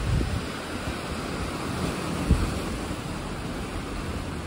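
Fast river rapids rushing steadily, the river running high with lots of water. Wind buffets the microphone with low thumps, at the start and again a little over two seconds in.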